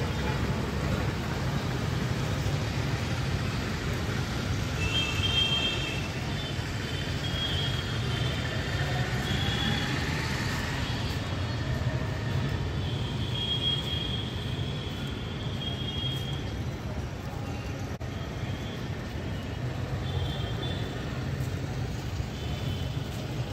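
Outdoor city street ambience: a steady traffic rumble, with short high chirps now and then.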